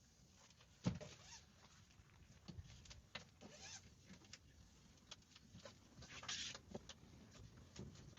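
Faint scattered taps, clicks and rustling, with one sharper knock about a second in.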